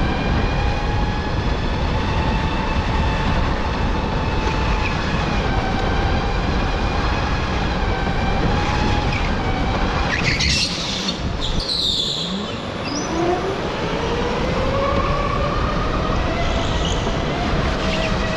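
Electric go-kart motor whining over wind and tyre noise as the kart drives. About ten seconds in the whine falls steeply in pitch as the kart slows, with brief high squeals, then rises again as it speeds back up.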